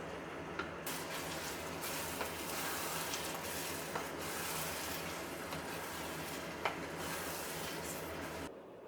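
Food sizzling as it fries in a pan, a steady hiss with a few sharp clicks of a utensil against the pan. It cuts off abruptly near the end.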